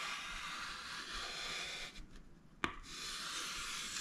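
Rubbing on the inside of a spruce violin top while chalk-fitting a bass bar, done so that the white chalk marks show the high spots still to be removed. The rubbing stops briefly a little past halfway, there is one sharp click, and then the rubbing resumes.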